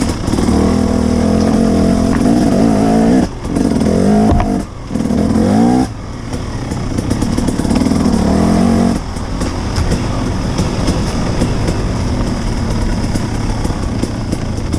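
Enduro motorcycle engine on a trail ride, revving and pulling with its pitch rising and falling, the throttle briefly shut twice in the middle. After about nine seconds it drops back to a quieter, steadier running.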